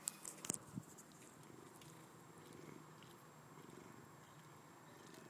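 Cat purring faintly and steadily, with a few sharp clicks in the first second.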